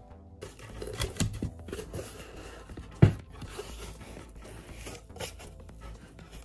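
A taped cardboard shipping box being opened: packing tape tearing and cardboard flaps scraping and rustling, with a sharp knock about three seconds in.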